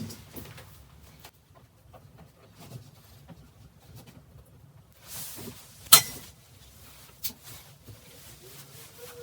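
Exercise bike seat being adjusted: scattered small clicks and rattles, a short rustle, and one sharp knock about six seconds in.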